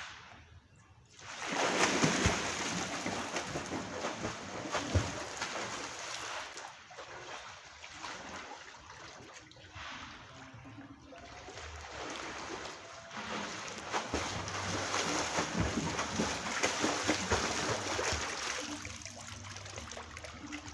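Water splashing and sloshing as a person swims, an irregular run of splashes that starts about a second in, eases off for a while in the middle, then picks up again.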